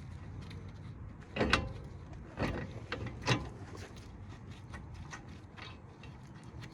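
Ratchet wrench clicking as a brake caliper bolt is run in, with a few louder metal clanks of the tool in the first half.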